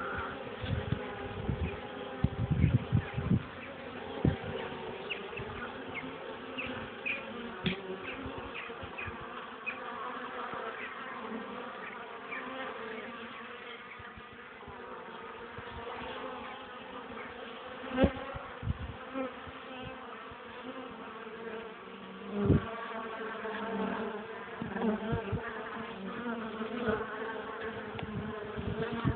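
Honeybees buzzing around a top-bar hive entrance: a steady hum of many flying bees. A few sudden thumps stand out, the loudest about 18 and 22 seconds in.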